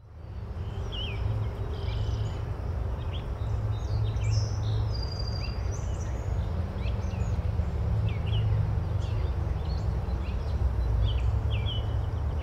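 Birds chirping in short, scattered calls over a steady low rumble of outdoor ambience, fading in over the first second.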